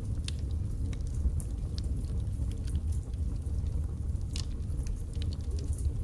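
Wood fire burning in a fireplace: a low steady rumble of flames with scattered sharp crackles and pops from the burning logs, one louder pop about four and a half seconds in.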